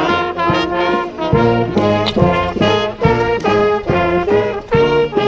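Brass street band with trombones and trumpets playing a rock tune in short, detached notes that repeat in a riff, with a low bass part underneath.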